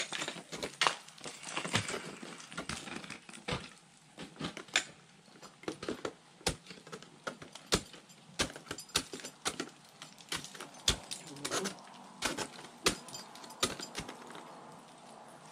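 Ice axe picks and crampon points striking the ice of a frozen waterfall during a climb: many sharp knocks at irregular intervals.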